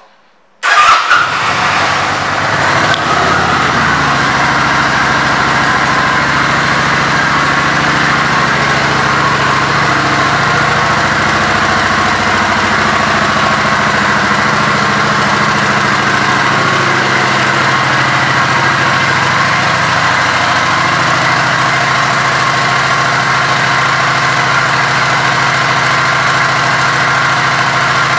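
Kawasaki Vulcan 900 Custom's 903 cc V-twin starting up about a second in, loudest as it catches, then settling into a steady idle.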